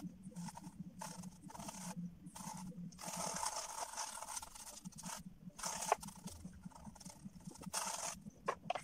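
A paintbrush scrubbing across a canvas in irregular scratchy strokes, some a fraction of a second and one about a second long, over a faint steady hum.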